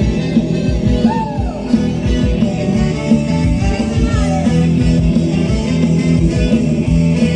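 A rock song played by a band: drums beating steadily under bass, guitar and singing.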